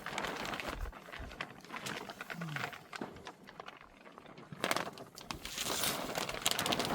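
Greenhouse plastic film crinkling and rustling as it is handled and moved by the wind, with scattered sharp crackles and a louder rustle near the end.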